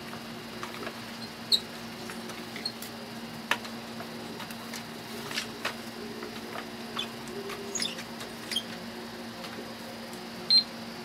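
Plastic clicks and taps from handling a toy cash register, with short, high electronic beeps from its keypad, one about a second and a half in and the loudest near the end.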